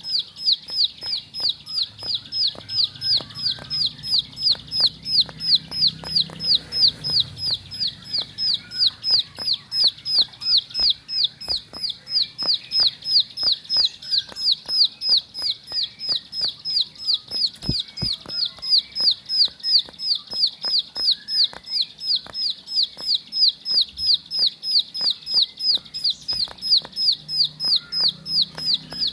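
Ciblek sawah, a prinia, calling in a fast, unbroken run of high, down-slurred notes, about three a second: the rapid 'ngebren' calling that keepers prize. Fainter, scattered chirps sound underneath.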